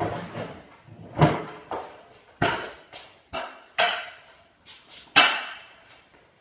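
Stunt scooters knocking and clattering on a concrete garage floor and aluminium ramps: about seven sharp, irregular knocks, each ringing briefly in the echoing room.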